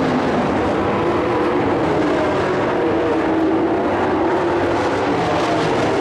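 Several dirt-track race trucks running hard in a pack. Their engine notes overlap and rise and fall as they go round the oval.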